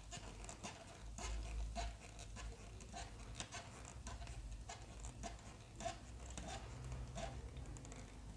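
Faint, irregular small clicks and scraping of a hand screwdriver turning a small screw into the underside of a plastic model car part.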